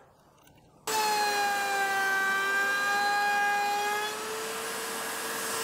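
Router in a router table, fitted with an edge-forming bit, running and cutting a profile into a scrap of MDF: a steady high whine with a hiss of cutting. It starts suddenly about a second in and eases a little in level after about four seconds, its pitch creeping up slightly near the end.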